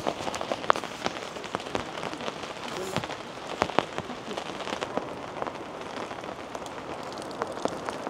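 Steady rain falling, with many sharp individual drops tapping close by.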